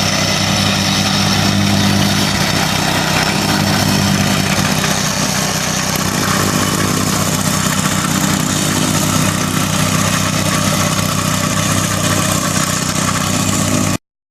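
An engine idling steadily with an even, rapid beat; the sound stops abruptly near the end.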